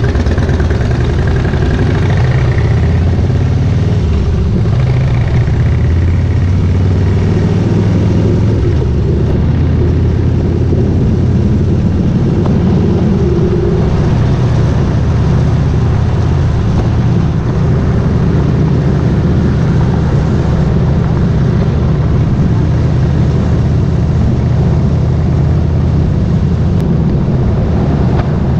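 Harley-Davidson Softail Slim's air-cooled V-twin engine pulling away and accelerating through the gears over the first several seconds, then running steadily at road speed around 40–50 mph.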